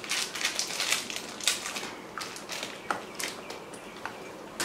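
Irregular crackling and crunching from small plastic sweet packets being handled and opened, with sweets being chewed.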